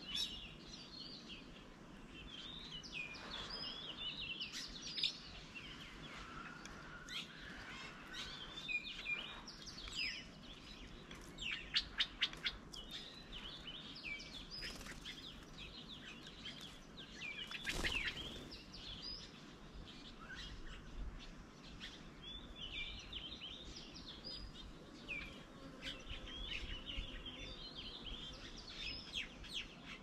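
Several birds calling and chirping at once, with many short chirps and whistles over a steady outdoor background hiss. A quick run of about four loud chirps comes about twelve seconds in.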